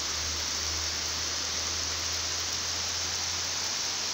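Heavy rain falling steadily on trees and puddled, muddy ground: a dense, even hiss.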